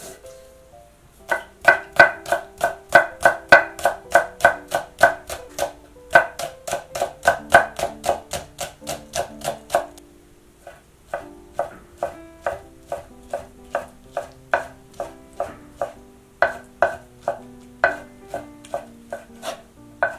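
Chef's knife slicing on a wooden cutting board in quick, even strokes, about four a second: first thinly slicing green onion, then, after a short pause about ten seconds in, slicing strips of raw bacon. Light background music plays underneath.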